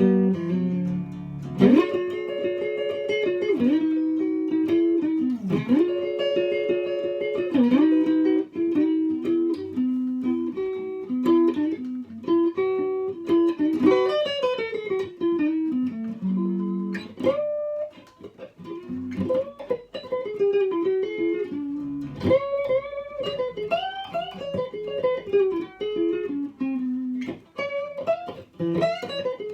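Vintage Isana archtop guitar played clean through a small valve amp: an improvised run of single-note melody lines mixed with held chords, with short breaks about eighteen and twenty-two seconds in.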